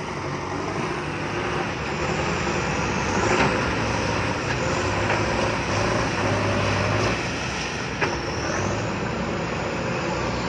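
Six-wheel truck engine running steadily under load as the truck climbs out of a pit, with a steady low drone throughout.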